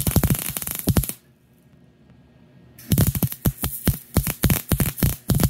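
MIG (wire-feed) welding arc crackling in rapid, uneven pops as it welds steel rods to a steel tube. It stops after about a second and starts again for a second weld near three seconds in.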